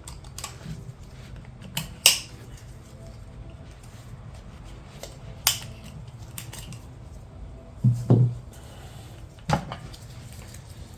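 Parts of a 4L80E transmission's overdrive section being handled during teardown: scattered sharp metallic clicks and knocks, the loudest about two seconds in and twice around eight seconds in, over a steady low hum.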